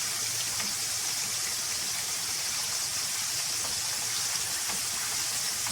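Hot oil sizzling steadily around a whole flour-coated chicken submerged in a deep fryer pan, a constant high hiss with faint crackles.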